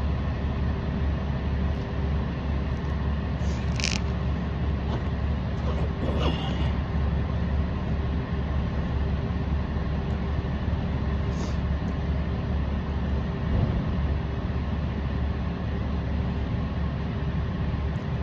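Steady low rumble with a faint constant hum, unchanging throughout; a few faint short clicks about four and six seconds in.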